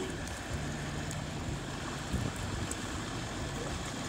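Wind buffeting a phone microphone held out of an open car window, a steady rush of noise, with a faint low hum from the car.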